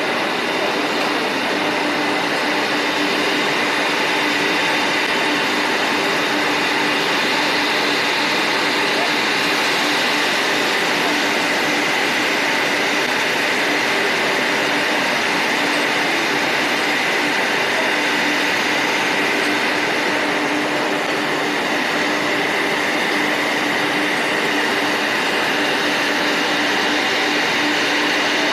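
Multi-spindle CNC wood mortising machine running, a steady mechanical din with a constant hum and a higher whine, set in the noise of a busy exhibition hall.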